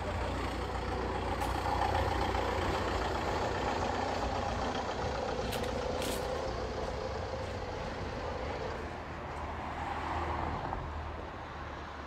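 A large motor vehicle's engine running close by: a steady low drone with some higher engine tones over street noise, dying away near the end.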